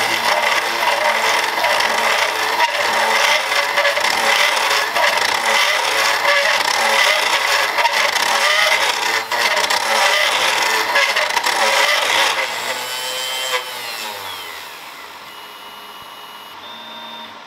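Cron Craft CNC router's spindle driving a fishtail bit through acrylic sheet at 6000 RPM, a loud rough cutting noise over a steady whine, at a depth per pass and feed rate that are suspected to be too high. About twelve seconds in the cutting stops, and the sound falls away with a falling whine.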